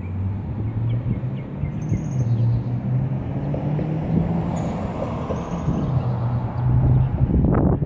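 A car engine running steadily nearby, its pitch drifting up and down a little, with birds chirping now and then.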